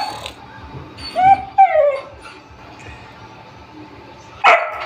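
Dog giving short, high-pitched yipping barks that fall in pitch: a pair about a second in and another, louder, near the end. It is worked up and begging for its dinner.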